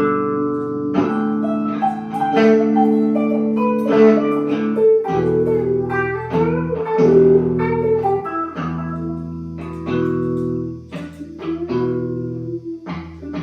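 Blues guitar playing an instrumental passage of plucked notes, with a low bass part coming in about five seconds in.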